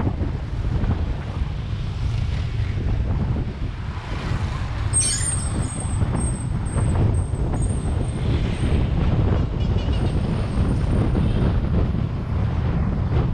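Steady low rumble of wind on the microphone and road noise from a moving vehicle. A thin, high squeal starts about five seconds in and comes and goes for several seconds.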